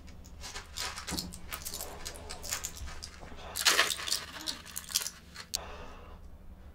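Crinkling and clicking of a plastic-and-foil blister pack of pills being handled, with a loud cluster of crackles about three and a half seconds in.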